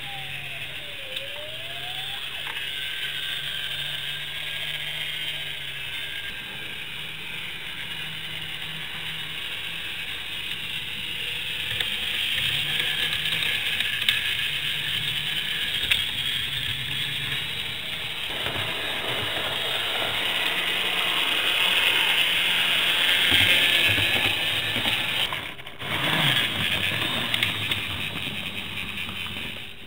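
N gauge model trains running on the layout: the whir of their small electric motors and the rattle of wheels over the track and points, a steady mechanical sound that grows louder as a train passes close by and dips briefly near the end.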